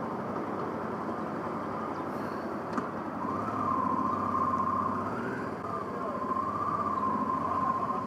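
Honda Africa Twin motorcycle rolling at low speed, its engine and road noise running steadily, with a steady high tone joining about three seconds in.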